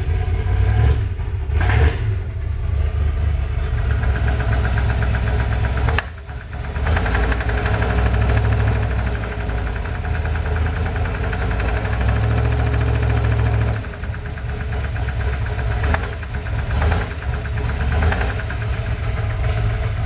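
Classic Ford Bronco engine running and revved by hand, swelling and easing off in loudness, with the knock that is heard mainly when it is revved. The cause is unknown; the suspects are lifters, pushrods, piston slap or loose rod caps.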